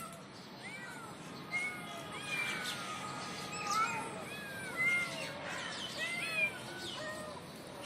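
Kittens mewing over and over: many short, high, rising-and-falling mews, several voices overlapping, as they call up to their mother cat.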